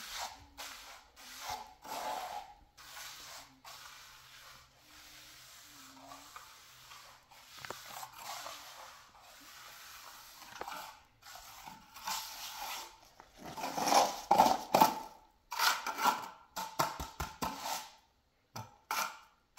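Steel trowel scraping and smoothing wet cement on a floor, in short repeated strokes that grow louder and come quicker about two-thirds of the way through.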